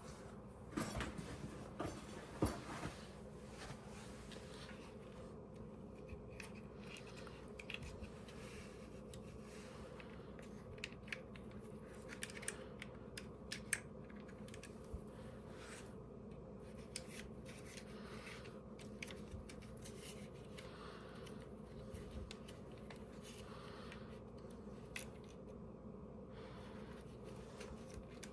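Light hand work on small parts: scattered soft clicks, scratches and snips, busiest in the first few seconds, over a steady low hum.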